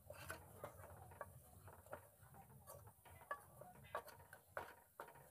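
Faint, irregular ticks and scrapes of a spatula stirring spice masala frying in oil in a steel pressure cooker.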